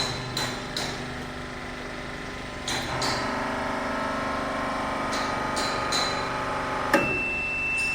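Hydraulic hose crimping machine working: a few sharp clicks, then its hydraulic pump motor hums steadily for about four seconds under load. A high steady beep starts near the end.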